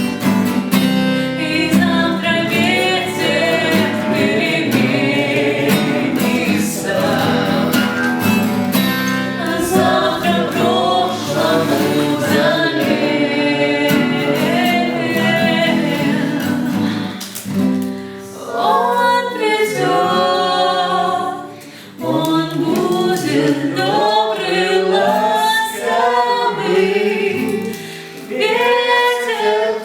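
A group of voices singing a song together over instrumental backing; from about two-thirds of the way in the low accompaniment drops away and the voices carry on with little backing, pausing briefly between phrases.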